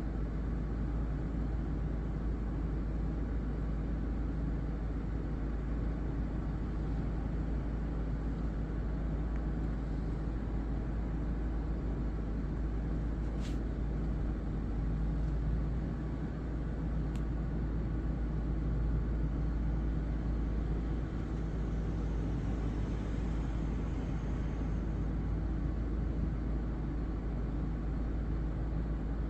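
Steady low outdoor rumble with an even hiss, and two faint ticks about 13 and 17 seconds in.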